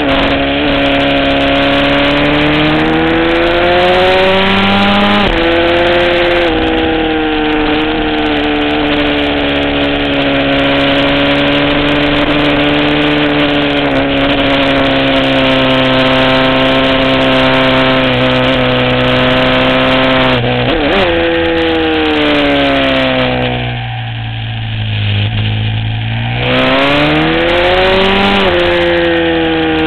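Aprilia SXV supermoto's V-twin engine at racing revs, heard from the bike: the note climbs and drops with each gear change, holds steady through a long stretch, then falls away and quietens for a couple of seconds near the end before climbing again.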